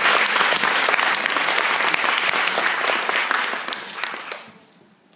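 Audience applauding, a dense steady clapping that dies away about four to five seconds in.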